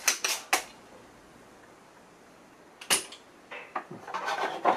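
Sharp clicks and knocks of desoldering tools and a circuit board being handled on a workbench: three quick clicks right at the start, a single sharp click about three seconds in, then a cluster of clicks and rustling near the end.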